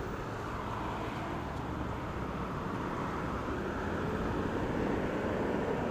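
Steady traffic noise from a busy city road: an even rumble of passing vehicles with no single event standing out.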